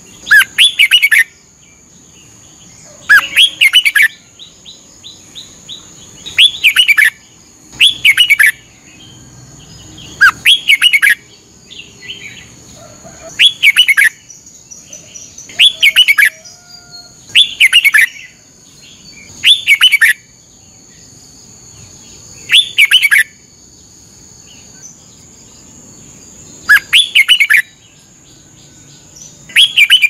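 Red-whiskered bulbul singing: about a dozen short whistled phrases, each under a second, sliding down in pitch and repeated every two to three seconds.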